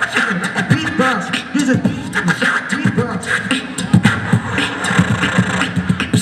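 Live group beatboxing through a PA: several performers making mouth-drum beats and pitched bass and vocal sounds, a busy, steady rhythm of sharp strokes over low tones.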